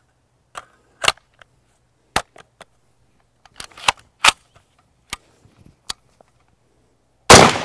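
A series of sharp metallic clicks and clacks as a curved AK-style magazine is fitted into a Faxon ARAK 21 rifle and it is readied, then a single loud 7.62x39 rifle shot near the end, ringing out and fading.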